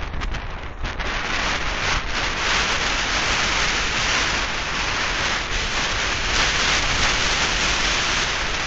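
Steady, loud rush of wind on the microphone of a bicycle-mounted camera while riding along a road.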